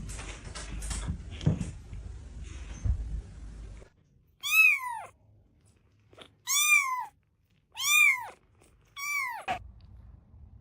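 A jumble of clicks and knocks, then, about four seconds in, a cat meowing four times, each meow rising and then falling in pitch.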